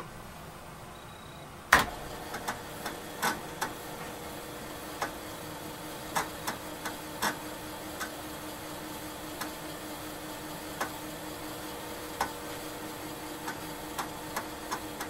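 TRS-80 Model III's 5.25-inch floppy disk drive starting up with a loud clunk about two seconds in. Its motor then runs with a steady hum while the head seeks in irregular clicks, reading the disk as a program loads.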